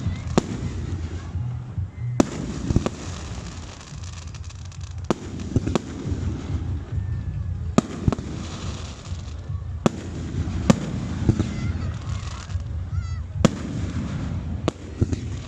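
Aerial fireworks bursting: about eleven sharp bangs at uneven intervals of one to two seconds, over a steady low rumble.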